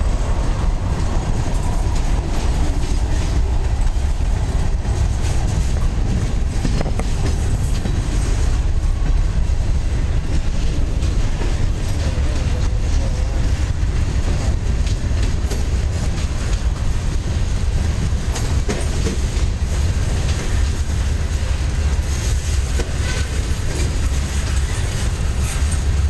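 Norfolk Southern freight train's cars, coal hoppers and then boxcars and a tank car, rolling past: a loud, steady rumble of steel wheels on rail with scattered clicks.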